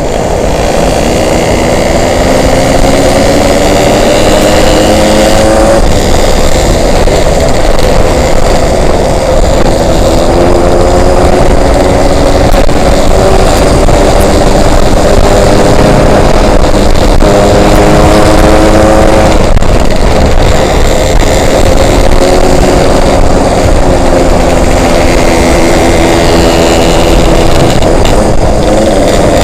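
Yamaha RX-King two-stroke single-cylinder motorcycle being ridden, its engine note climbing through each gear and dropping back at the shifts several times. Heavy wind noise on the microphone runs under it.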